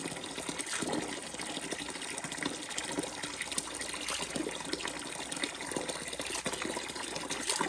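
Hot water running in a steady stream from a diesel combi water heater as its tank is drained, with a faint steady low hum underneath.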